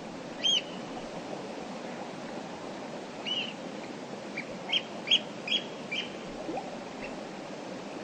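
Steady rush of a clear mountain river, with a bird calling over it: a single call near the start, another about three seconds in, then a quick run of five or six short chirps.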